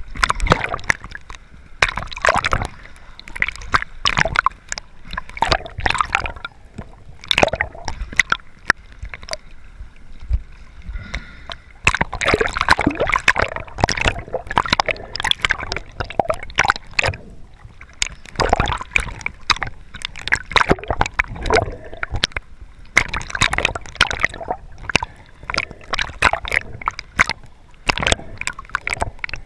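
Water sloshing, gurgling and splashing around a camera held at and just under the surface by a swimming snorkeler, in irregular bursts.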